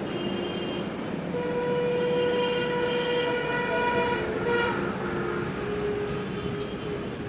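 A horn sounding in long, steady blasts over a steady background rumble, loudest from about a second in until about four and a half seconds, then lower held tones at shifting pitches to the end.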